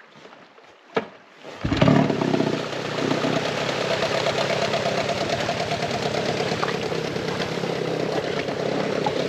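25 hp Johnson two-stroke outboard motor starting up: after a short knock about a second in, the engine catches a little later with a brief burst of revs, then settles into steady running.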